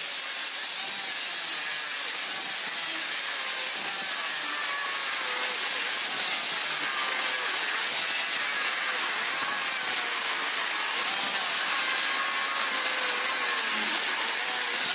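A small right-angle grinder grinding steel sheet metal, grinding welds down flat. It runs steadily with a hiss and a whine that wavers in pitch as the disc is pressed into the metal.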